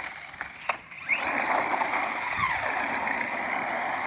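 Radio-controlled car driving: a few clicks, then about a second in a short rising whine as it speeds off, followed by steady motor and tyre noise on the road surface.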